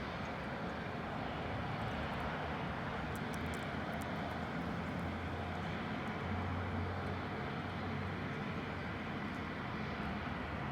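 Steady rumble of road traffic going by, with a low hum that swells briefly in the middle.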